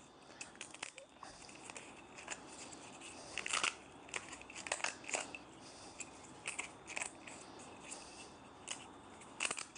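Irregular small clicks, knocks and scrapes of wood being handled as the waste is cleared out of a freshly sawn bridle-joint slot; no saw running.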